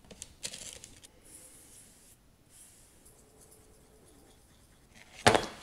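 Foam brush rubbing oily chain lube onto a sheet of paper, a soft scratchy sound, with a faint hiss of fine sand being poured over it. Near the end, one sharp slap as the sand-covered sheet is dropped onto a plastic tub.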